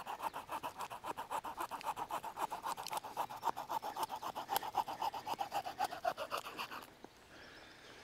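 Victorinox Swiss Army Knife wood saw cutting through a wooden stick in fast back-and-forth strokes, a steady run of rasps several times a second that stops about seven seconds in.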